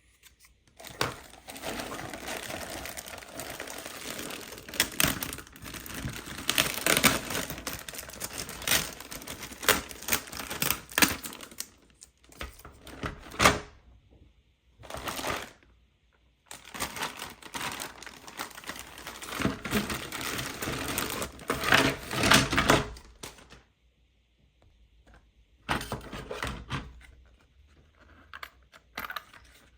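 Plastic toy parts and packaging being handled: irregular clicking, clattering and rustling in bursts, with short pauses between them.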